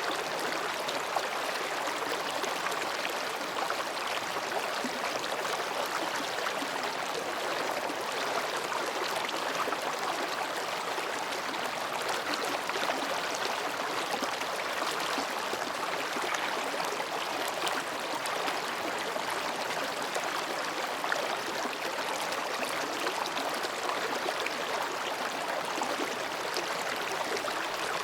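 Mountain stream babbling as it flows between rocks, a steady even rush of water.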